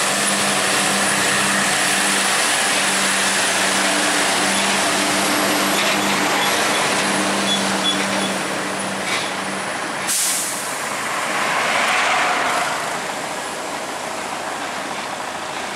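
Heavily loaded Mitsubishi Fuso three-axle rigid truck's diesel engine pulling steadily as it climbs past, with a short, sharp burst of air-brake hiss about ten seconds in. A broader swell of road noise follows around twelve seconds, then the truck's sound fades.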